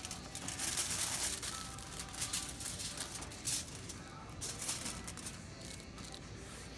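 Aluminium hair-colouring foil crinkling and rustling in quick crackly bursts as it is handled and pressed against the hair. The bursts thin out after about four seconds.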